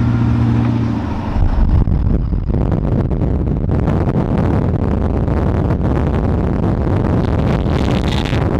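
A truck's engine hums steadily for about a second, then loud wind rushes and buffets over the microphone held out of the open window of the moving truck, in gusts, drowning out the engine.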